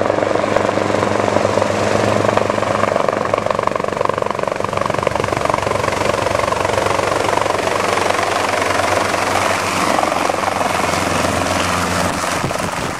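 Hughes 269A piston helicopter flying in close and landing, its engine and main rotor running steadily, the sound changing near the end as it settles onto the ground.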